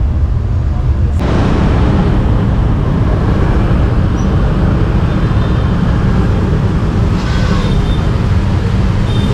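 Steady street traffic noise, mostly a low drone of motorbike and car engines. About a second in it changes abruptly and takes on more hiss.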